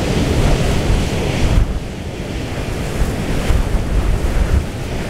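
Storm wind buffeting the microphone in gusts: a loud, uneven low rumble over a rushing hiss of wind and rough sea. The hiss eases about a second and a half in.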